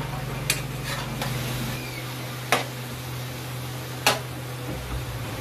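A steady low hum with four separate sharp clicks of a spatula knocking against a steel wok.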